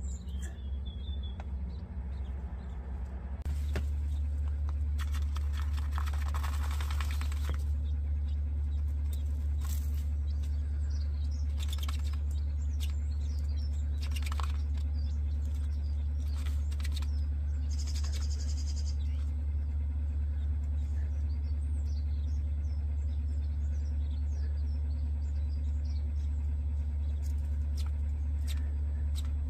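Quail dust-bathing in a dish of fine bird sand mixed with diatomaceous earth, scratching and shuffling in the sand with a few short chirps, over a steady low hum.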